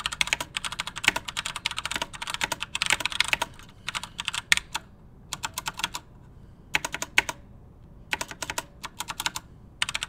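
Typing on a Razer Pro Type keyboard with Razer Orange tactile switches, a somewhat dampened keystroke sound. The typing is fast and continuous for about three and a half seconds, then comes in shorter bursts with pauses between them.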